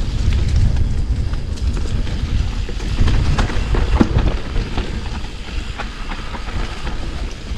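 Electric mountain bike (Specialized Turbo Levo) riding down a rough dirt trail: a steady low rumble of tyres and wind, with frequent short clatters and knocks as the bike rattles over rocks and roots.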